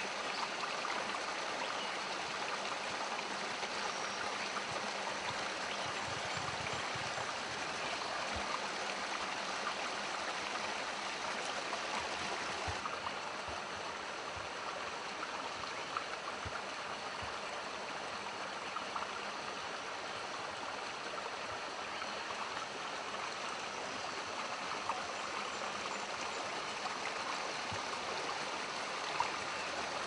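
Small stream pouring over rocks in a short cascade into a pool, a steady splashing rush of water.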